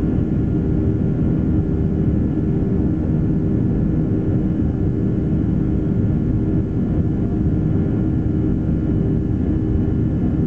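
Boeing 737-300's CFM56 turbofan engines at climb thrust just after takeoff, heard from inside the cabin over the wing: a steady roar with a steady hum.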